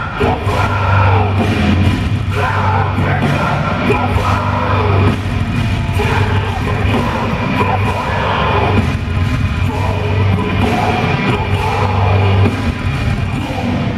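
A heavy metal band playing loud live, with electric guitars, drums and a singer yelling and singing, heard through a large hall's PA from among the audience.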